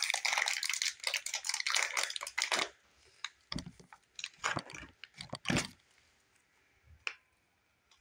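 Crinkling and rustling of handled slime-making supplies for about the first two and a half seconds, then a few separate soft knocks and clicks. The last click, about seven seconds in, has a brief ring.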